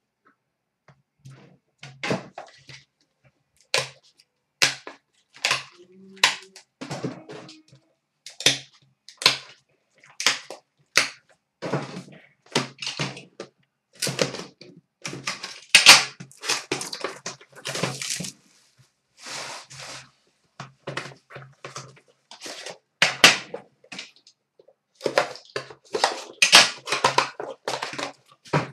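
Packaging being handled and opened: an irregular run of sharp clicks, knocks and crinkles as an Upper Deck The Cup hockey card box is unwrapped and its metal tin set down and handled, loudest about halfway through.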